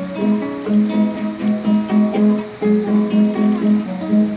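Acoustic guitar music, notes picked in a steady repeating pattern.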